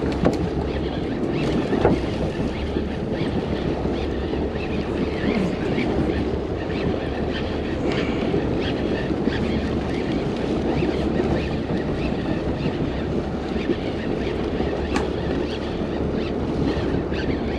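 Steady rumble of a fishing boat's engine running, with wind buffeting the microphone and faint scattered ticks over it.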